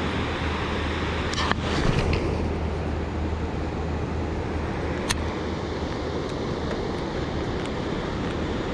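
Steady wash of wind and moving water with a low hum underneath, broken by a few sharp clicks about a second and a half in and again about five seconds in.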